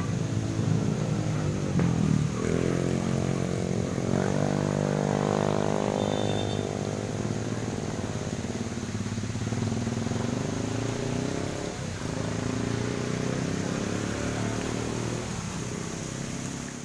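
Motor vehicle engines running, with one passing whose pitch rises and then falls about four to seven seconds in, over the steady splashing hiss of a tiered fountain's falling water.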